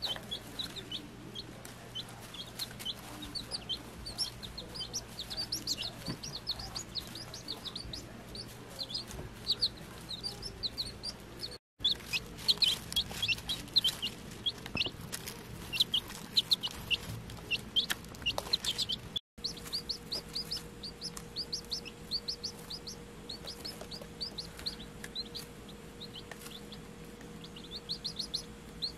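Several week-old chicks peeping: a constant stream of short, high cheeps, many birds overlapping. The sound drops out briefly twice, about twelve and nineteen seconds in.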